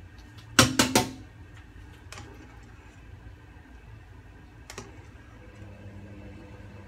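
Three sharp metal clinks in quick succession about a second in, as metal kitchen utensils knock against the cooking pot, then a few fainter single clinks as the pot is stirred, over a low steady hum.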